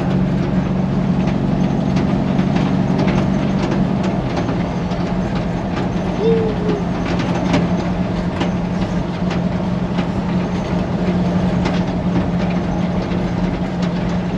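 An old truck driving slowly, its rebuilt Chevrolet 250 inline-six running steadily, with the body rattling and knocking throughout. A brief squeak about six seconds in.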